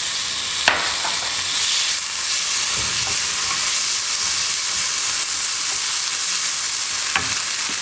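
Chopped tomatoes, onions and spices frying in hot oil in a nonstick pan while a wooden spatula stirs them: a steady sizzling hiss. The spatula knocks lightly against the pan twice, about a second in and near the end.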